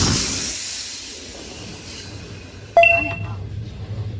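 A rushing noise fades away over the first second, then nearly three seconds in comes a single sharp metallic ding that rings on briefly.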